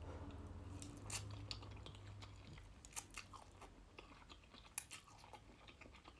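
Close-up eating sounds: vermicelli noodles being slurped and chewed, with wet mouth clicks and smacks at irregular intervals. A low hum runs through the first couple of seconds.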